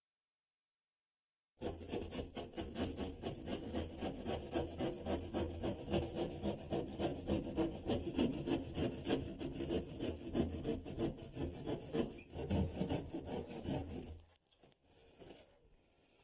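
Hand saw sawing through the ceiling in rapid, repeated strokes to cut the fan opening. It starts abruptly about a second and a half in and stops about two seconds before the end.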